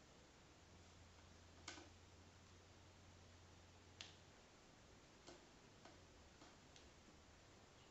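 Near silence with a few faint, irregular clicks: a kitten's claws catching on the carpeted cat-tree platform and a fluffy ball toy as it paws at it.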